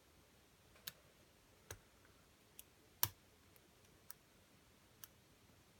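Lock pick and tension wrench working the pin stack inside a lock: a handful of small, sharp metallic clicks spaced irregularly, one louder click about three seconds in.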